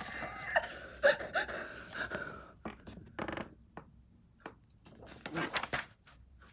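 A child's short wordless vocal sounds in the first two seconds or so, then scattered brief rustles and brushes of a sheet of printer paper handled close to the microphone.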